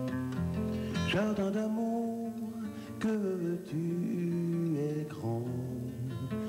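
Solo acoustic guitar played with a man's voice singing along; the sung melody comes in about a second in over the plucked guitar.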